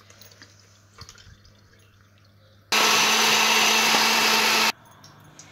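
Electric mixer grinder grinding wet tamarind chutney in one short burst of about two seconds; the motor starts suddenly, runs steadily and cuts off.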